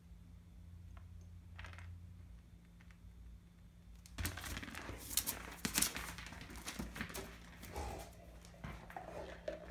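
Akita puppy mouthing and pawing a hard plastic ball on a stone floor. Starting about four seconds in, there is a dense run of clicks, knocks and scrapes of teeth and claws on the plastic and the floor.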